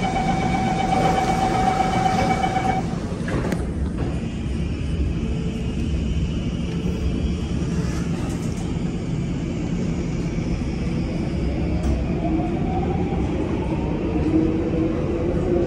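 Electric train running with a steady rumble, a steady tone sounding for the first few seconds. From about ten seconds in, a whine climbs steadily in pitch as the train speeds up.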